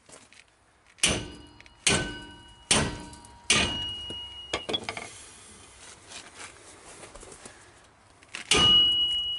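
A hammer striking the end of a steel drum puller's screw on a 1948 Nash Ambassador brake drum: four ringing metal blows less than a second apart, then after a pause another hard blow near the end. The blows are meant to break the tight, seized drum free.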